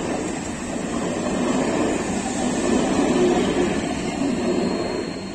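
Electric multiple-unit local train running past at speed: a steady rumble of wheels on rail that swells in the middle and fades near the end as the last coaches go by, with a faint high whine coming in.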